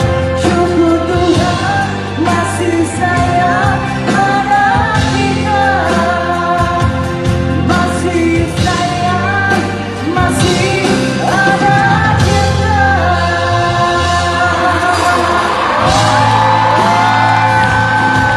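Live rock band with electric guitars, drums and keyboards playing a Malay pop song, heard from the audience in a concert hall. A lead line sings over the band and ends on a long held note near the end.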